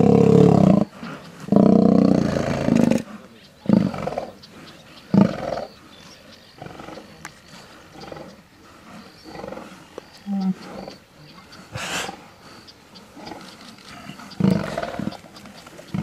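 Lions growling and roaring: two long, loud calls in the first three seconds, then shorter, quieter calls spaced through the rest, with one more loud call near the end.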